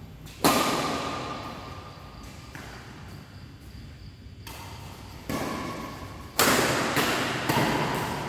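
Badminton rackets striking a shuttlecock, each hit a sharp crack that echoes through a large sports hall. There is one hit about half a second in, then three more spaced about a second apart near the end.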